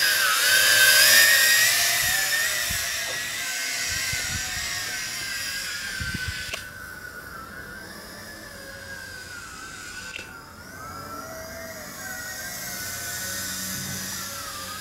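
YiZhan Tarantula X6 quadcopter's motors and propellers whining in flight, the pitch wavering up and down as the throttle changes. Loudest in the first couple of seconds as it passes close, then fading as it climbs away.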